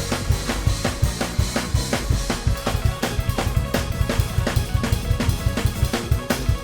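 Fast gospel praise-break groove on a drum kit, with rapid bass drum and snare hits and crashing cymbals over keyboard chords and bass notes.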